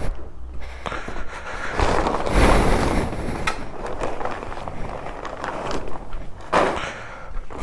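Cloth motorcycle cover rustling and swishing as it is dragged off the bike by hand, in a couple of bursts, with footsteps on concrete and a sharp click a few seconds in.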